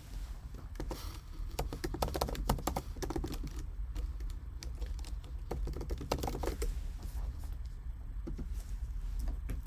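Typing on a computer keyboard: irregular runs of keystrokes, thickest in the first few seconds and again about six seconds in, while a player's name is searched.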